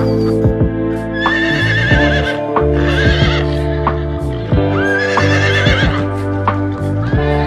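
Background music with a horse whinnying twice over it, each a high, quavering call of about a second.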